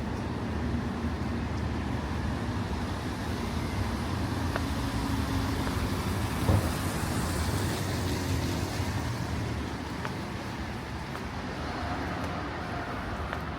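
Street traffic on a rain-wet road: a vehicle's engine hum with tyre hiss that swells around the middle and fades. There is one sharp knock about six and a half seconds in, and the low hum drops away about ten seconds in.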